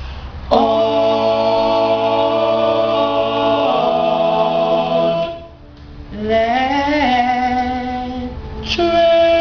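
Male vocal quartet singing a cappella in close harmony, holding long chords. One chord is held for about five seconds, then after a brief breath a new phrase comes in and rises in pitch.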